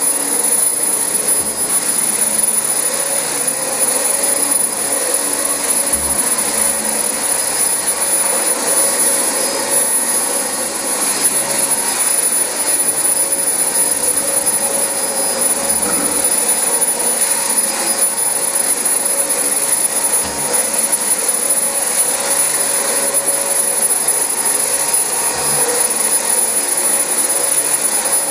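Dyson DC25 upright vacuum cleaner running steadily while vacuuming carpet: a loud, even rush of air with a high motor whine.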